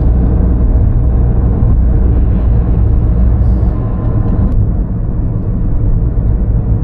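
A Toyota Corolla on the move: a steady low rumble of road and engine noise, easing slightly about two-thirds of the way through.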